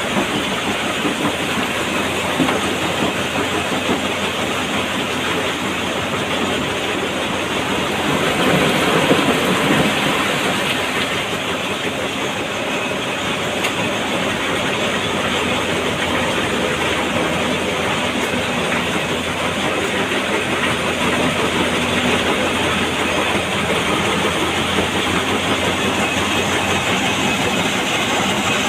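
Stone crusher running with a Komatsu PC200 excavator working at its hopper: a steady clattering machinery noise, swelling louder for a few seconds about eight seconds in.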